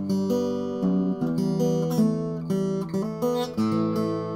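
Acoustic guitar played with a series of plucked notes and chords, each ringing on as the next is picked, recorded through a Blue Snowball microphone.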